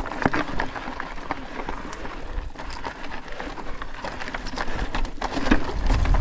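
Cannondale Scalpel mountain bike rolling over a rough, rocky trail: tyres crunching on loose stones, with many sharp clicks and rattles from the bike. A low rumble builds near the end.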